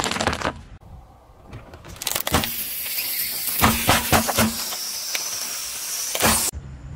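Car tyre crushing hard, brittle objects on asphalt: a short burst of crunching candy canes at the start, then, from about two seconds in, a longer run of crackling with several sharp cracks that cuts off suddenly near the end.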